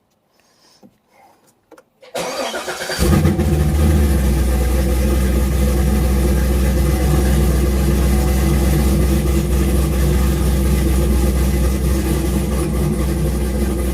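Car engine cranked about two seconds in, catching within a second and settling into a steady, loud idle. The engine is already a little warm from an earlier start.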